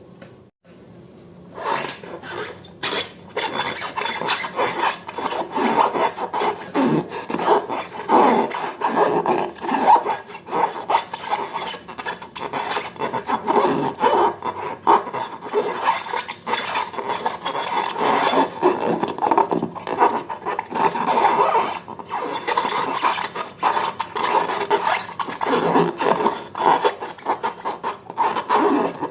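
Continuous irregular rubbing and scraping, starting about one and a half seconds in after a quiet start.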